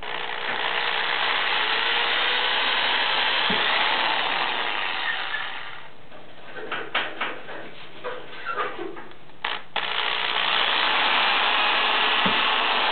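Electric drill running steadily as its twist bit bores through a taped stack of popsicle sticks. After about six seconds it stops for a few seconds, with light clicks and knocks of the workpiece being handled, then runs again.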